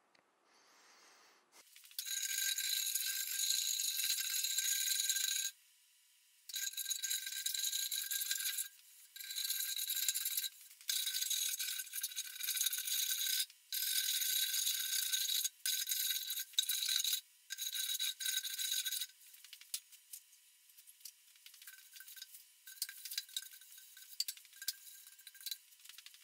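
Electric sander running over the glued-up laminated pine benchtop in a series of passes, each lasting one to three and a half seconds and stopping abruptly. It is a steady hiss with a few fixed whining pitches. From about nineteen seconds on it is fainter and patchier.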